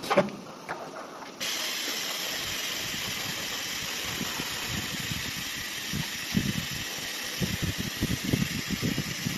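ATC CNC nesting router starting its run: a few clicks, then about a second and a half in a steady hiss of air switches on abruptly and holds. Irregular low knocks of the machine working come through under the hiss in the second half.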